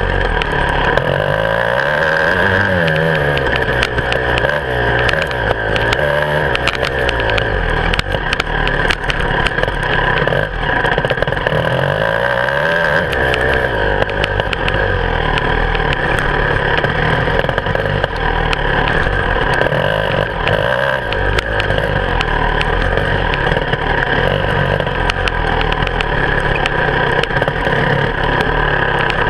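Beta 300 RR two-stroke enduro motorcycle engine, heard close up from the handlebars, revving up and down as the bike is ridden over rough dirt trail, with frequent knocks and rattles from the bike going over the ground.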